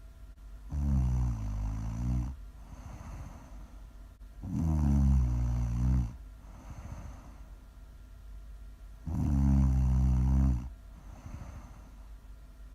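Loud, low snoring: three long snores about four seconds apart, each lasting about a second and a half, with a softer breath out between them.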